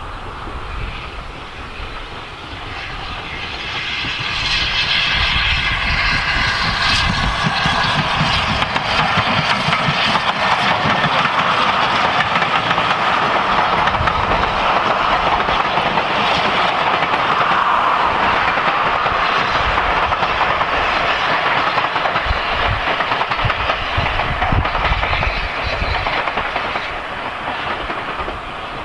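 Caledonian Railway 439 Class 0-4-4T steam tank locomotive with two coaches running past on the line. The sound grows louder about four seconds in, stays steady, and eases near the end as the train draws away.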